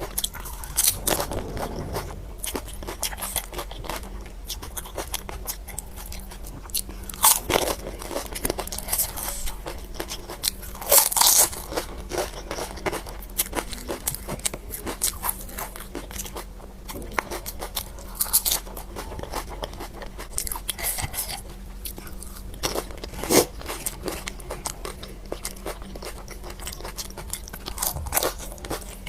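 Crisp pani puri shells being bitten and chewed, with irregular sharp crunches and wet chewing.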